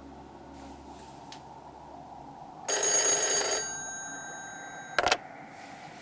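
An old corded desk telephone's bell rings once for about a second and rings out, then a short clatter as the handset is lifted off its cradle.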